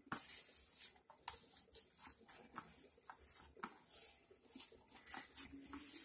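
Fingers mixing and crumbling khoya with chopped almonds and spice powder on a steel plate: an irregular soft scratching and rubbing, with fingers scraping the metal.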